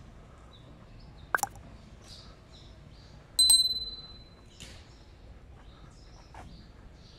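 Subscribe-button animation sound effect: a quick double mouse click about a second and a half in, then a bright bell ding about three and a half seconds in that rings briefly and fades. Faint bird chirps sit over quiet street ambience.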